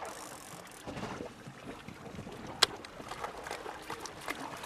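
Faint wind and water noise aboard a fishing boat at sea, with scattered small clicks and one sharp click about two and a half seconds in.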